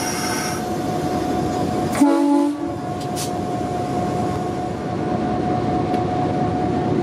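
EMD GP9 diesel locomotive heard from inside its cab, the engine running steadily with a thin steady whine over it during an air-brake set-and-release test. Air hisses briefly at the start, and a short, loud pitched blast like a horn toot comes about two seconds in.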